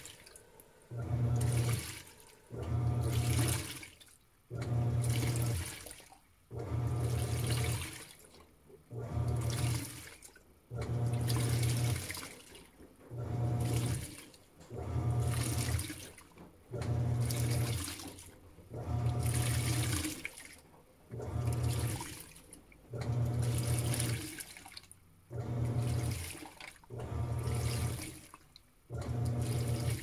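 Panasonic 16 kg top-load washing machine agitating a full load in its duvet wash cycle: the motor hums and the water and clothes churn in strokes of about a second and a half, with short pauses between, roughly one stroke every two seconds.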